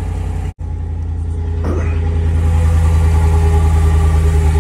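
Dodge Ram 1500 pickup engine idling steadily. The sound drops out for an instant about half a second in and grows somewhat louder from a little over two seconds on.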